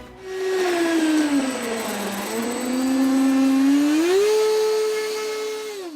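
The 70mm electric ducted fan of an RC jet whining: its pitch sinks over the first two seconds, climbs in two steps to a higher steady whine, then drops away near the end as the fan winds down.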